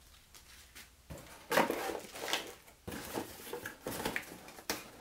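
Parts and cardboard packaging being handled and set down: a string of knocks, clatters and rustles starting about a second in, the loudest knock shortly after.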